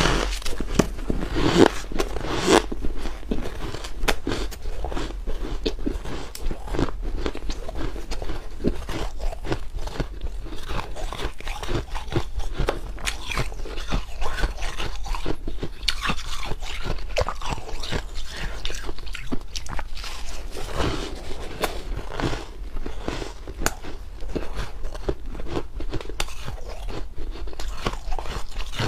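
Ice being bitten and chewed close to the microphone: a continuous run of irregular crunches and crackles.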